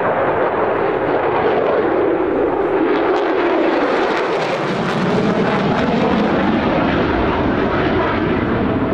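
Jet noise from a Mitsubishi F-2B fighter's single General Electric F110 turbofan, loud and steady as it flies a hard turn. A tone in the noise falls in pitch over the first few seconds, and the hiss is sharpest about four to five seconds in.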